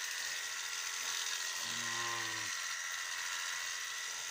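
Electric sheep shears running with a steady high-pitched buzz as they cut through the fleece. About two seconds in, the sheep gives one short, low bleat that drops in pitch at its end.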